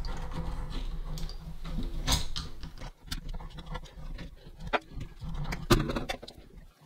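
Limescale being scraped and rubbed off the chrome body of a kitchen mixer tap: a scratchy rubbing for the first few seconds, then a handful of light clicks and taps on the metal.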